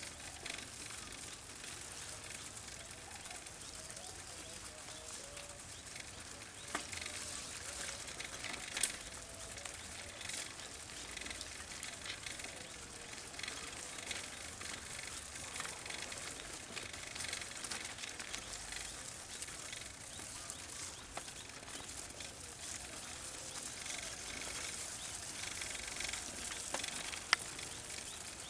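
Rural outdoor ambience: birds calling now and then over a steady high hiss, with a few sharp clicks, one about nine seconds in and another near the end.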